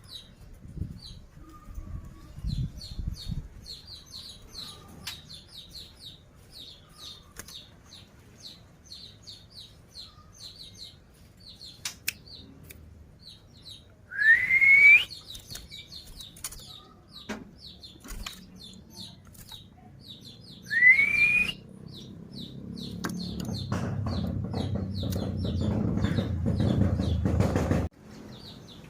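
Young white-rumped shamas (murai batu) giving short chirps over and over at a quick pace, with two loud rising whistles about halfway through. A low rumbling noise builds over the last few seconds and cuts off suddenly.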